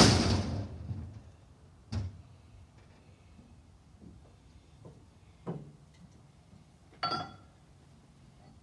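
A loud sharp clank at the start that rings out for about a second, then three lighter single knocks a few seconds apart, the last with a brief ringing tone. No engine is running or cranking.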